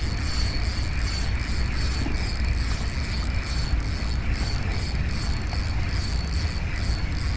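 Spinning reel being cranked steadily against a fish on a bent rod, its gears whirring with a regular ticking at each turn of the handle. A steady low rumble runs underneath.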